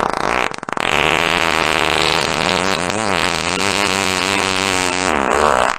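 A long fart sound effect: one continuous pitched blast of nearly six seconds, its pitch wavering throughout, starting abruptly and tailing off at the end.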